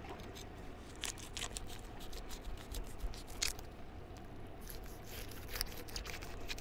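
A long knife cutting into a heavily scaled mullet snapper behind the head and along the back: irregular crunching and scraping of scales and skin, a string of short crackles, over a low steady hum.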